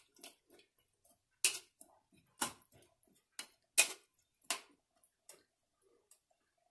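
Metal spoon stirring a thick vegetable curry in an aluminium pressure cooker, clinking against the pot's rim and side in sharp taps about once a second; the taps stop after about five seconds.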